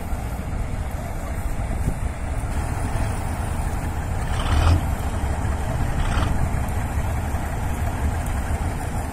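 Diesel engines of Kirovets K-701 tractors idling, a steady low rumble, with two brief louder sounds about four and a half and six seconds in.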